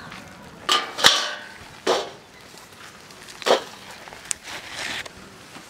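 Several sharp knocks and clatters, irregularly spaced, some with a short ringing tail.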